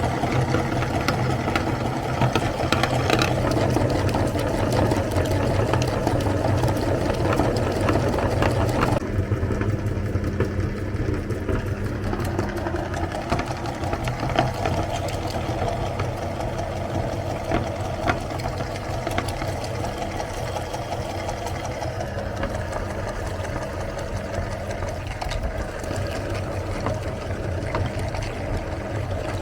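Electric meat grinder running steadily, grinding chocolate bars: a motor hum with a crunchy rattle on top. About a third of the way through, the harsher, higher part of the sound drops away while the motor keeps running.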